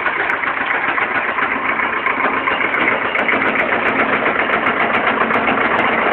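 Tractor engine running steadily, pulling on a chain.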